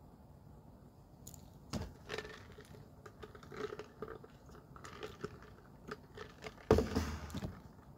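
Drink sipped through a straw from a plastic takeaway cup, with the cup handled close to the microphone: irregular small clicks and rustles, and a louder knock about seven seconds in.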